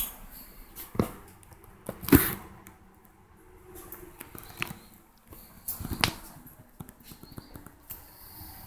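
A few scattered light knocks and clicks, spaced a second or more apart, with faint rustling between.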